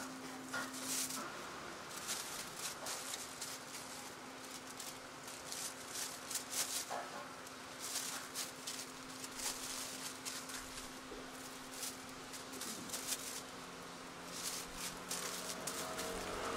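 Thin plastic food-handling gloves and plastic bags crinkling and crackling in quick, irregular bursts as popiah spring rolls are rolled and bagged by hand, over a steady low hum.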